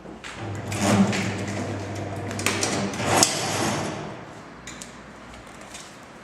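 SM-06S semi-automatic strapping machine running one strapping cycle: its motor hums steadily from about half a second in until about four seconds, with clacks near one second and a louder one just after three seconds.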